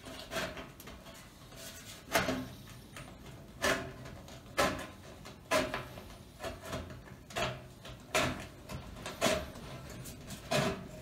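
Tin snips cutting through the sheet steel of a black stovepipe, trimming it to length: a crisp crunching snip of metal about once a second, with short pauses between strokes as the blades work around the pipe.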